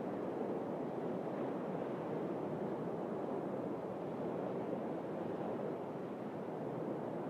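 Steady wash of sea waves on the shore, a rushing noise that swells and eases slightly.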